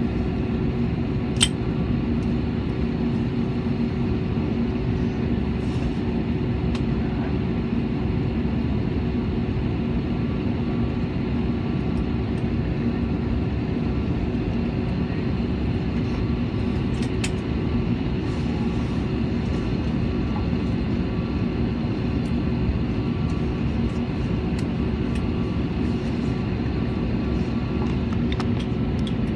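Steady cabin noise inside an Airbus airliner on the ground after landing: engines at idle and cabin air, a constant hum with a couple of steady tones. A sharp click about a second and a half in.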